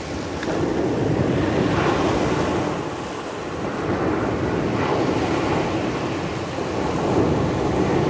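Small sea waves breaking and washing up over a pebble beach, the surf rising and falling with each wave. Wind buffets the microphone throughout.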